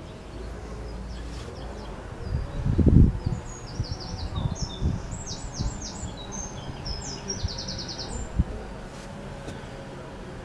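A small bird singing in quick trills and runs of rapidly repeated high notes, over a low rumble with a few dull thumps, the loudest about three seconds in.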